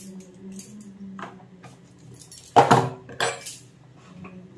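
Kitchen clatter of small plastic spice containers being handled and put away, with two loud clattering knocks a little past halfway, over a steady low hum.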